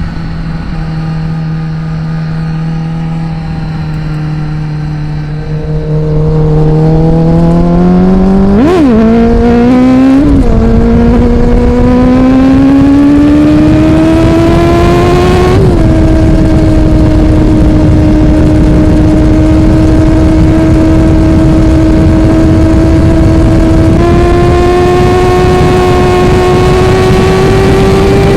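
2010 Kawasaki ZX-10R's inline-four engine through an Akrapovič carbon exhaust, loud from a microphone at the rear of the bike. It is steady at first, then revs up with its pitch rising, breaking sharply about nine, ten and fifteen seconds in as the gears change. It then holds a steady cruising note that lifts slightly near the end.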